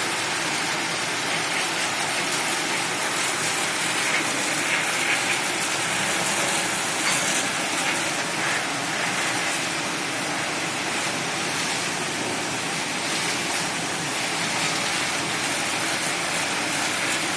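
High-pressure washer spraying a steady jet of water, heard as a continuous hiss of spray.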